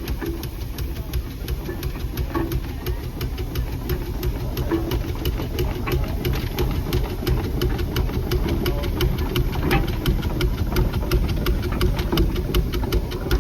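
An engine running steadily under a low rumble, with a rapid, even ticking of several sharp beats a second.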